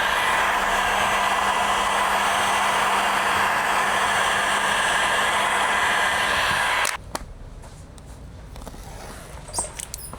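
Electric heat gun blowing hot air steadily, warming the vinyl door skin so it conforms to the panel. It switches off sharply about seven seconds in, leaving a few small handling clicks.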